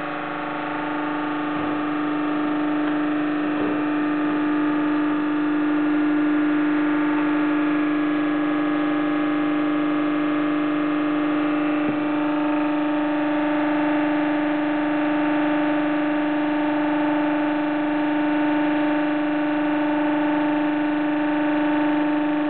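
Hydraulic drive of a filter press running with a steady, loud hum, one strong low tone with higher overtones above it, as the hydraulic ram slowly moves to open the press. A few faint knocks come through, one about twelve seconds in.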